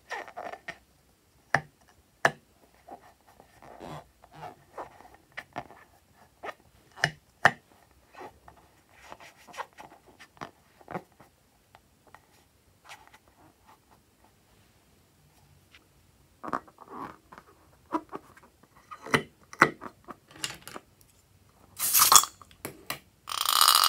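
A slime-filled rubber balloon squeezed and rubbed in the hands, giving scattered squishes, squeaks and taps. Near the end its neck is snipped with scissors, and slime forced out through the cut neck makes a loud rasping buzz.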